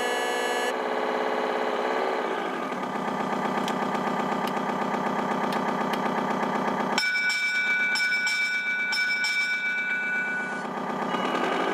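The RC model tugboat's sound module playing a ship's diesel engine sound through its speaker. The engine pitch drops a couple of seconds in and rises again near the end. For about three and a half seconds past the middle, a steady high two-note tone sounds over the engine, with a pulsing higher ring.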